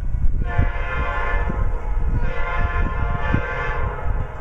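Locomotive air horn sounding two long blasts of about a second and a half each, with a brief gap between, over a low rumble.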